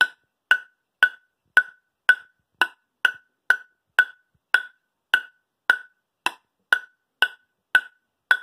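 An orange plastic table tennis ball bounced steadily on the bare wooden face of a Tibhar Dynamic JC 5+2 ply composite blade with no rubber on it. It gives a sharp, hollow click about twice a second, each bounce the same as the last.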